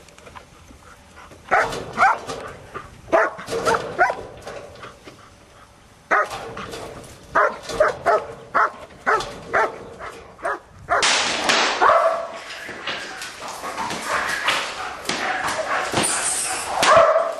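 Dog barking at a handler during protection training: sharp barks about two a second in bursts separated by short pauses, then a louder, denser run of barking over the last several seconds.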